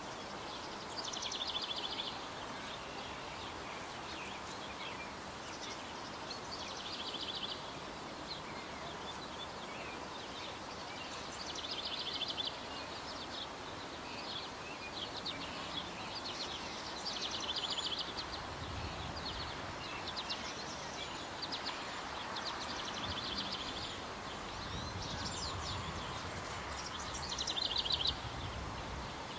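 A small songbird singing a short, rapid trilled phrase again and again, about every five seconds, over a steady outdoor hiss, with a low rumble in the second half.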